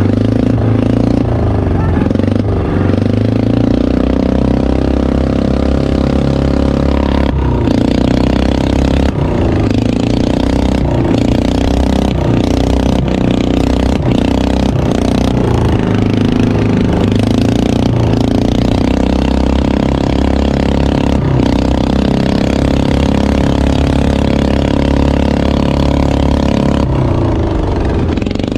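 Motorised outrigger boat's small engine running steadily at cruising speed.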